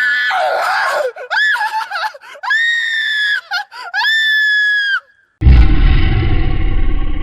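Jump-scare sound effect: a very high-pitched woman's scream in several long, wavering shrieks. About five seconds in, a loud, distorted low crash of music cuts in.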